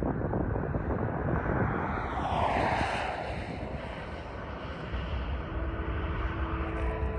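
A distant locomotive horn sounds a steady chord of two or three notes for about two seconds, starting about five and a half seconds in, over wind and a low rumble. Earlier, about two seconds in, a broad whoosh swells and falls in pitch.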